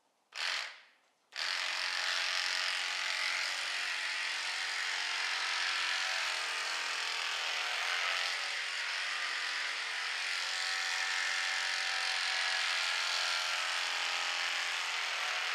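Electric horse clippers with spring-tensioned blades running, a steady buzzing hum, as the blades cut through a horse's coat. The hum starts a little over a second in.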